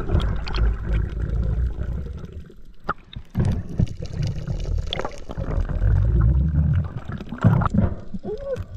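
Underwater sound heard through a camera housing while snorkeling: a heavy, uneven low rumble of moving water with gurgling and scattered sharp clicks.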